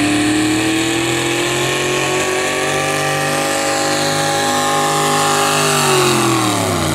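Square-body Chevrolet pull truck's engine running hard at high revs while dragging a weight-transfer sled, its pitch slowly climbing. About six seconds in it winds down sharply.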